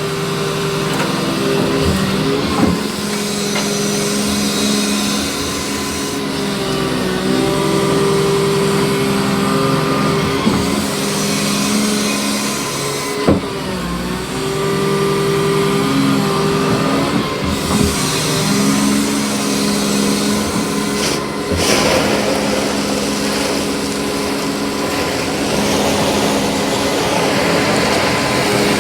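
Excavator engine running and revving up and down as the machine works its boom. There are a few sharp knocks, and the sound turns noisier about two-thirds of the way through.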